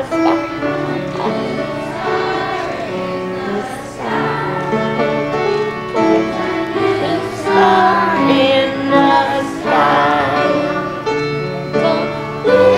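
Children's choir singing a Christmas song with instrumental accompaniment, the young voices muffled a little by face masks.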